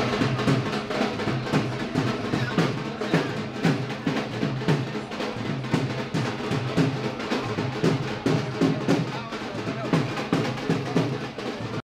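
Drums beating a fast, steady rhythm, with music.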